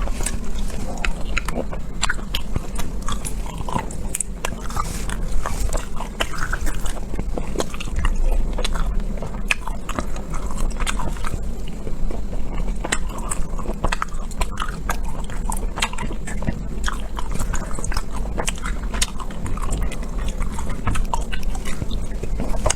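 A person chewing and biting food close to the microphone, a dense irregular run of small clicks and smacks.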